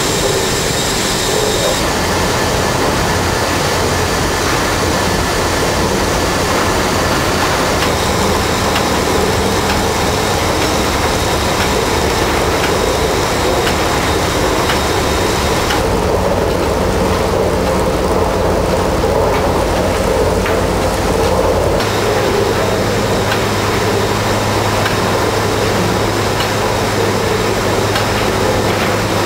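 Werkspoor drop-valve stationary steam engine with Meier-Mattern hydraulic valve gear running steadily amid other sugar-mill machinery: a loud, continuous mechanical din with a steady low hum. The tone of the noise changes a few times.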